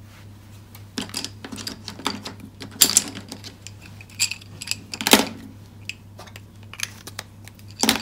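Plastic marker pens clicking and rattling against each other as a handful is gathered up: a run of light irregular clicks with louder clacks about three and five seconds in and again near the end, over a low steady hum.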